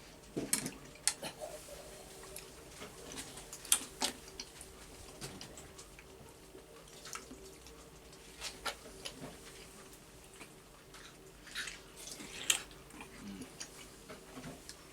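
Close-up wet eating sounds of juicy ripe melon being bitten and chewed: scattered smacking, slurping clicks, the sharpest about four seconds in and again near the end, over a faint steady hum.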